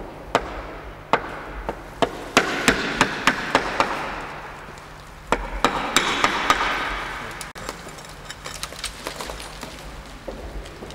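Hammer tapping a chisel to chip ceramic wall tiles loose from their mortar bed: single sharp knocks, then two stretches of fast tapping over a gritty grating noise.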